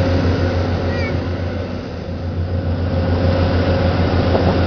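Tour boat's engine running steadily under way, a low pulsing drone with the rush of wind and water over it.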